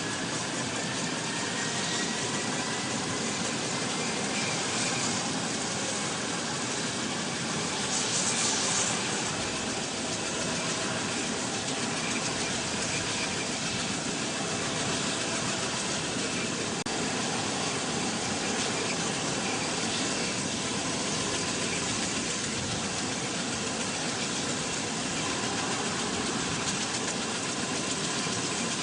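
V-22 Osprey tiltrotor's twin turboshaft engines and proprotors running steadily, with a faint whine that rises slightly in pitch over the first few seconds.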